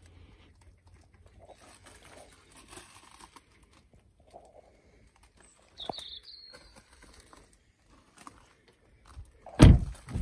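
Quiet outdoor background with a single bird chirp about six seconds in, then the BMW 3 Series coupe's driver's door shutting with a sudden heavy thump near the end.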